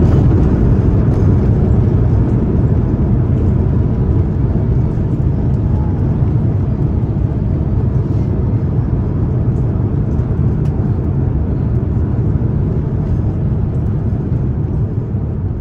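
Airbus A350-900 cabin noise on the landing rollout: a steady low rumble from the wheels on the runway and the engines, slowly fading as the airliner slows.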